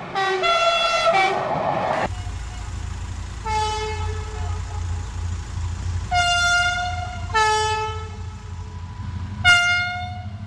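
Train horn sounding about six short blasts, switching between a lower and a higher note, over a steady low rumble from about two seconds in.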